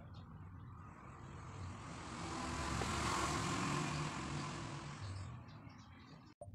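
A vehicle passing by: a broad rushing noise that swells, peaks around the middle and fades away. The sound cuts out briefly near the end.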